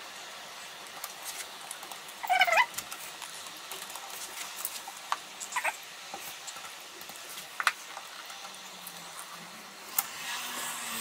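Small clicks and taps as a window handle is pressed onto the frame with construction adhesive, with one short, loud, rising squeak a little over two seconds in and a weaker squeak midway.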